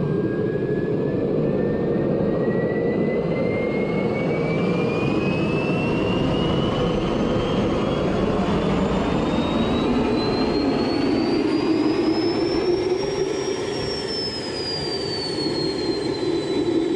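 Small turbojet engine running at idle with a steady roar. A whistling whine climbs slowly for about thirteen seconds, then drops back a little and holds steady.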